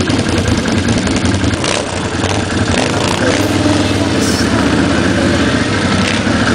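Quad bike (ATV) engines running steadily as the machines move off through snow.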